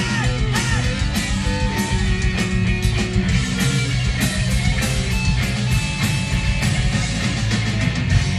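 Live ska-punk band playing loud, with electric guitars, bass and a fast drum beat.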